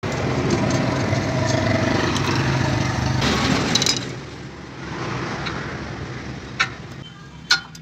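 A steady mechanical running noise with a low hum, like a motor or engine, drops away about four seconds in. Then, near the end, come two sharp metallic clinks of brake caliper parts being handled.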